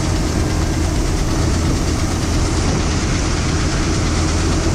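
Combine harvester running steadily: a constant engine drone with machinery noise, as it harvests wheat and fills a grain trailer.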